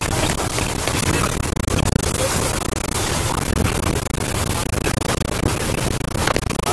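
Steady rumble of a bus's engine and road noise heard inside the cabin on a potholed mountain road, with the bus rattling and a few sharp knocks as it jolts over the bumps, most of them near the end.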